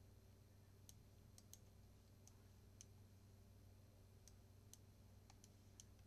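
Near silence with about ten faint, irregular computer mouse clicks over a low steady hum.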